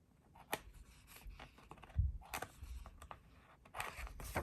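A paper sticker being trimmed and handled on a journal page: scattered light clicks and scratchy rustles, with a soft knock about two seconds in.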